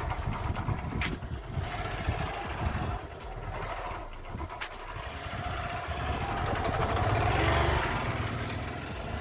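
Honda Shine motorcycle's single-cylinder engine running as the bike rides off at low speed, getting louder about seven seconds in, then easing.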